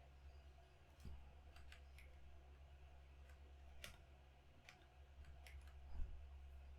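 Near silence with a low steady hum and about eight faint, scattered clicks from operating a laptop.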